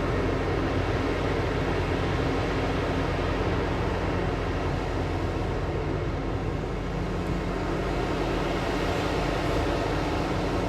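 Large diesel mining machinery running steadily, a constant low engine hum under a broad mechanical rumble.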